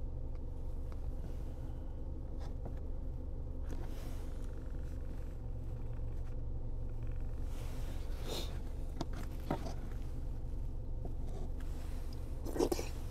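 Steady low hum inside a car cabin, with a few faint rustles and scrapes as a paper food cup and bag are handled, the clearest near the end.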